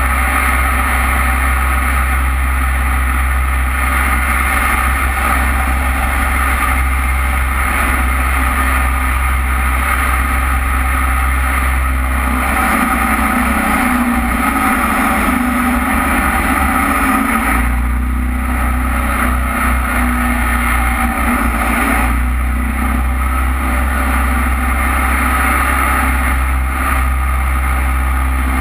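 Jet boat's engine running steadily at speed, with water rushing past the hull. Its low drone eases for a few seconds about halfway through.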